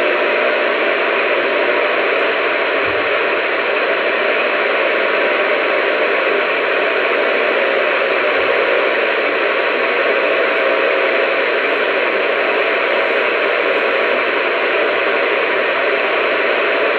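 Steady, loud static hiss from a radio receiver, with no voice on the channel.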